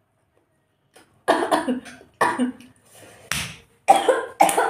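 A woman coughing in short fits while eating momos, starting about a second in and coming back about once a second, some coughs voiced like gasps.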